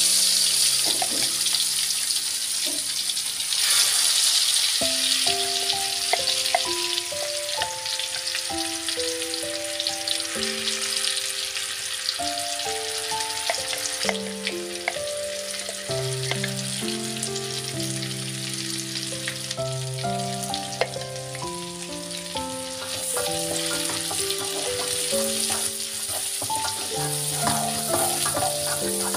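Ground spice paste sizzling steadily as it fries in hot oil in a wok, with background music playing a stepping melody of held notes. Near the end a metal spatula stirs the paste, giving a few sharp scrapes.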